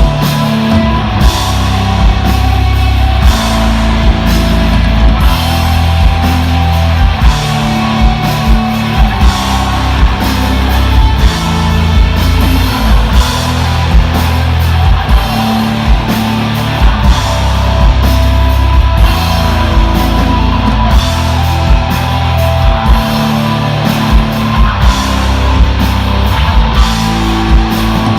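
Live rock band playing loud, with distorted electric guitar over bass and a drum kit keeping a steady beat.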